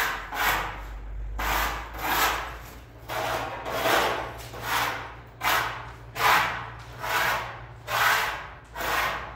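Rhythmic scraping strokes, about a dozen in a row at a little over one a second, each a short rasping sweep.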